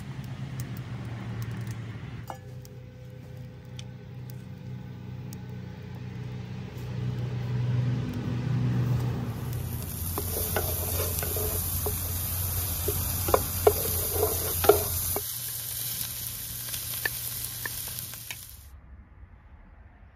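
Food sizzling as it fries in hot oil in a metal pan over a wood fire, starting about halfway through and stopping abruptly near the end. A wooden spatula scrapes and taps the pan several times during the frying. The first half holds a low steady hum.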